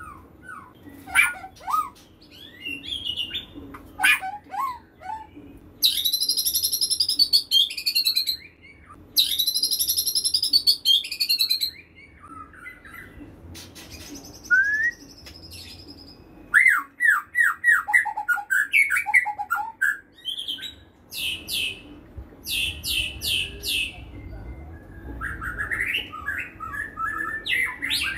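White-rumped shama singing: a varied string of whistled glides, chattering notes and rapid high trills, phrase after phrase with short pauses between them.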